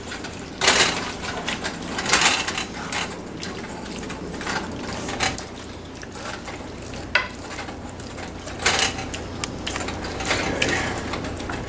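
A spoon scraping and clinking against a cooking pot as thick chili and beans are stirred, in irregular strokes.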